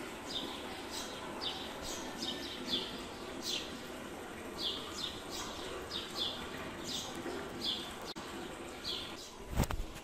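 Small birds chirping, short high falling chirps repeating irregularly about twice a second, over a steady low background hiss. A single thump near the end.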